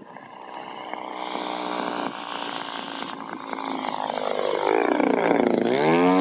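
Engine and propeller of a 1/3-scale radio-controlled Cessna 182 Skylane model making a low flyby. The drone grows steadily louder as the plane approaches, then its pitch drops sharply near the end as it passes overhead.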